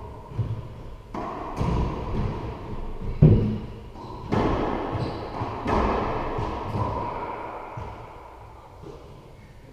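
Racquetball rally: the ball cracking off racquets and the court walls, each hit ringing on in the enclosed court. About half a dozen sharp hits in the first six seconds, the loudest about three seconds in, then the sound dies down.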